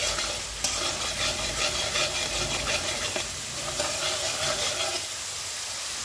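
Onion-garlic masala paste with turmeric and chilli powder sizzling in mustard oil in a metal kadai, while a spatula stirs and scrapes it. The stirring stops about five seconds in, leaving only the steady sizzle.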